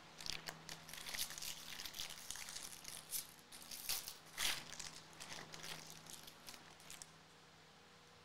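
Foil wrapper of a Bowman Jumbo baseball card pack being torn open and crinkled by hand: an irregular run of sharp crackles and rips that stops about seven seconds in.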